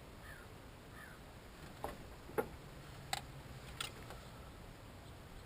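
A few faint, sharp clicks, about four of them spread through the middle of the stretch, over a faint low hum.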